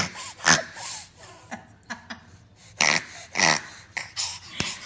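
A baby making a series of about half a dozen short, breathy vocal noises in irregular bursts.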